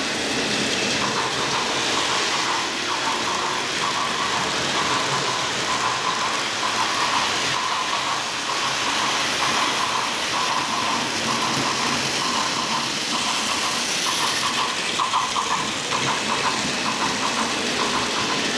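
A model train of blue sleeper coaches running on its track, a steady whirring, rolling hiss of the motor and wheels with a rapid, irregular clicking over it.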